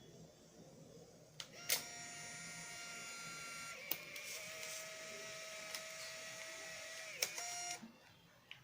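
Fujifilm Instax Mini 8 instant camera: a shutter click, then the film-ejection motor whirring steadily for about six seconds as it pushes out the exposed print. There are a couple of small clicks along the way, and it stops with a click near the end.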